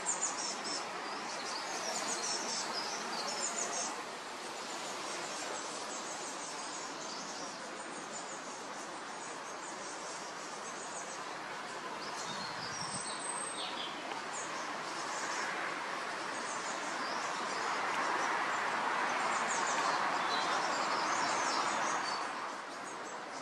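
Woodland ambience: small birds chirping and singing over a steady rushing hiss that swells for several seconds in the second half.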